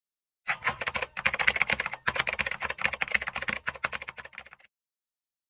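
Rapid computer-keyboard typing sound effect: a fast run of key clicks with a short break about two seconds in, starting and stopping abruptly.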